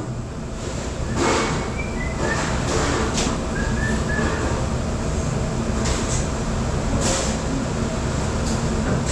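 Steady low rumble of a commercial dishwashing machine running, with a few short bursts of noise.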